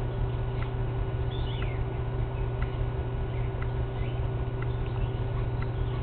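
Outdoor background: a steady low hum, a short high chirp repeating about once a second, and a couple of quick falling bird-like chirps about a second and a half in.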